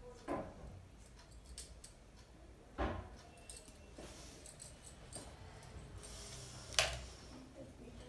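Light clinks and clicks of small makeup tools and cases being handled: three clearer ones, the loudest near the end, among fainter ticks, over a low steady hum.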